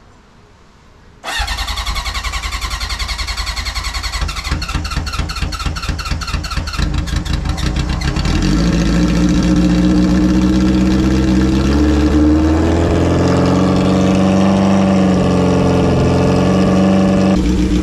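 1976 Honda motorcycle engine starting up about a second in and running, uneven at first, then louder and steadier from about eight seconds, with one rise and fall in revs partway through.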